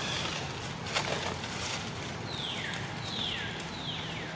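Three high, clear calls in the second half, each a whistle falling in pitch in under half a second, over a steady outdoor hiss, with a single sharp click about a second in.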